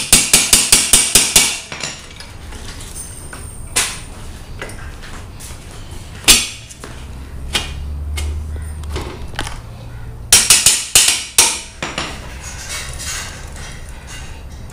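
Sharp metallic clicks and knocks from hand tools on a motorcycle's rear sprocket and hub as they are fitted: a quick run of about eight clicks at the start, single knocks in between, and another run of four or five about ten seconds in.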